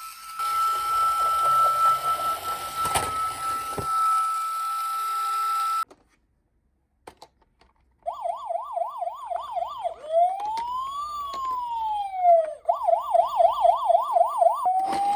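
Electronic siren of a toy police car sounding. A steady high tone cuts off about six seconds in, followed by a short silence with a few clicks. The siren then runs a fast yelp of about four warbles a second, one slow rising and falling wail, and another fast yelp.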